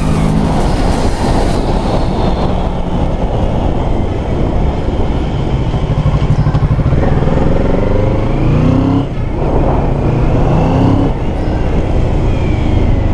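Kawasaki Z650's parallel-twin engine with stock exhaust, heard from on the moving bike under heavy wind noise on the microphone. The engine pitch rises and falls with the throttle, dropping back sharply about nine seconds in and again about two seconds later.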